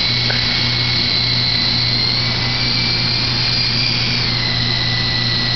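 Blade CX3 coaxial electric RC helicopter in flight: a steady high motor whine over a low hum, the whine dropping slightly in pitch about four seconds in.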